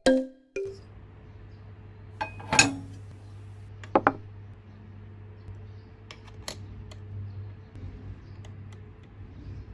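Miniature Re-ment toy kitchenware being handled: small dishes, pots and utensils clinking and tapping a few times, the loudest clinks about two and a half and four seconds in, over a faint steady hum. A last chime note sounds at the very start.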